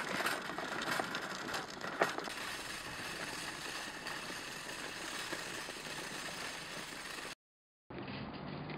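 Shopping cart being pushed along a snow-packed road: a steady rattle of the wheels and wire basket, with a few sharper clicks near the start. It cuts off abruptly near the end and gives way to a faint low hum.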